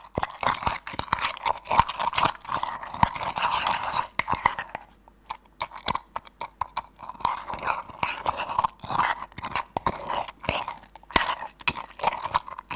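Metal teaspoon handled close to the microphone: dense, irregular crackling clicks and scrapes with a short lull about halfway through.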